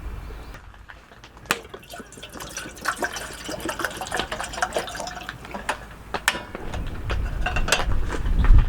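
Water dripping and splashing in irregular, sharp drops, with a low rumble building and peaking near the end.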